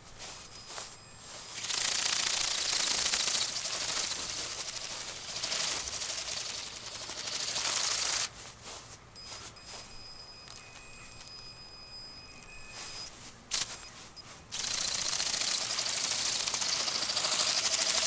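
Bionic Bird robotic flapping-wing bird in flight, its motor-driven wings making a fast buzzing rattle. The rattle is loud for about six seconds, fades for several seconds as the bird flies off, then comes back loud for the last few seconds as it passes close overhead.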